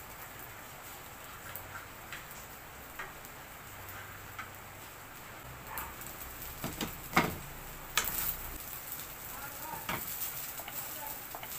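Fried rice crackling quietly in a covered frying pan on a gas stove. About two-thirds of the way through, the glass lid is lifted off and set down on the stovetop with a couple of sharp clanks, then a wooden spatula scrapes and stirs the rice in the pan.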